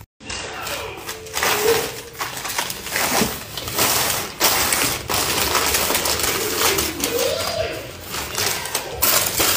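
Rustling and clattering of plastic and cardboard product packaging handled by hand, with frequent small clicks and knocks as items are packed.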